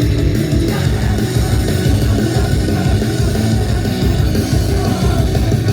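Loud rock-style song music playing through a concert sound system.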